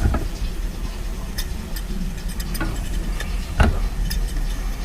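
Coleman 424 dual-fuel stove burner running on unleaded fuel with a steady low rumble and hiss, still warming up before its flame turns blue. Scattered light ticks and clicks, one louder a little over halfway through.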